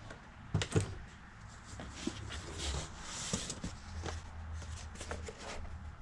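Toy packaging being handled: a couple of sharp clicks a little after the start, then plastic and cardboard rustling around the middle, with scattered small clicks.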